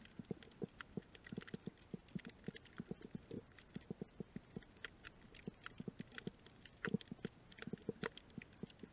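Irregular underwater clicking and crackling on a shallow coral reef, several clicks a second at uneven spacing.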